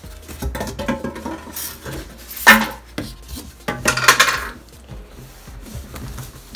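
A microwave oven being unpacked from its cardboard box: cardboard flaps and styrofoam packing rubbing and scraping under the hands, with two louder scrapes about two and a half and four seconds in.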